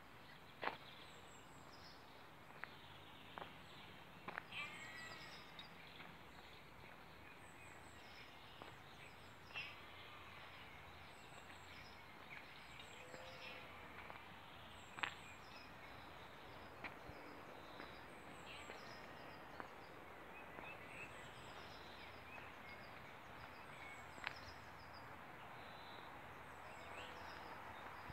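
Faint outdoor ambience with small birds singing and chirping, in short high trills and warbling phrases, and a few sharp isolated clicks.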